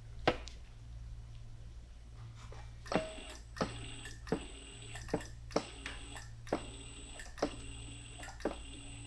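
Steel cab-corner panel being run through a bead roller's dies to roll its flange edge round. A low steady hum runs under sharp metallic clicks, which start about three seconds in and come roughly once every half second to a second.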